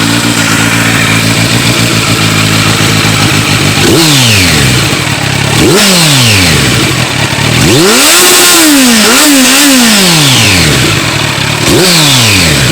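Kawasaki Z900's inline-four engine idling through a freshly fitted Delkevic Mini 8-inch carbon fibre round slip-on exhaust, then revved: two short throttle blips, a longer rev with two peaks in the middle, and another blip near the end, each falling back to idle.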